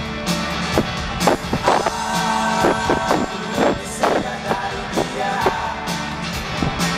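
Live band music through stadium loudspeakers: electric guitar over regular drum hits, with an overloud bass that muddies and distorts the sound.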